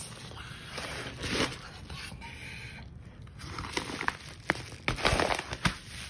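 A yellow padded mailer envelope being handled, crinkling and rustling as it is pressed, lifted and turned over. There is a brief crinkle about a second in and a run of sharp crackles in the second half.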